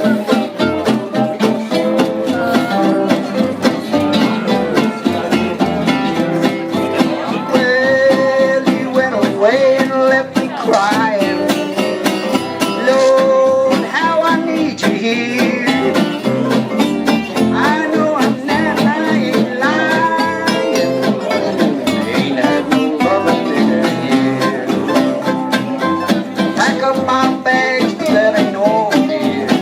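Live band playing a country-blues song, with guitars prominent and a sliding lead melody line over the accompaniment.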